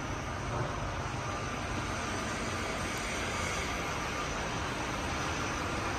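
Steady, even rushing noise of factory background machinery, with no distinct knocks or tones standing out.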